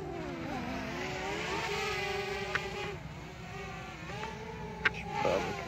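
Quadcopter drone propellers whining, the pitch dipping and rising as it manoeuvres, with a sharp click near the end.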